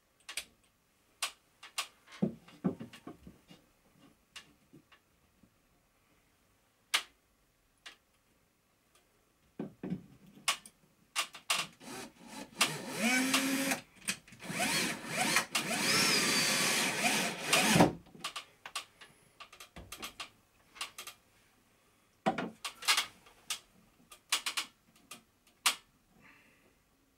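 Cordless drill-driver running in several bursts, the longest from about twelve to eighteen seconds in, driving screws to fix a mounting bracket into the wooden cabinet wall. Sharp clicks and knocks of tools and parts being handled come before and after it.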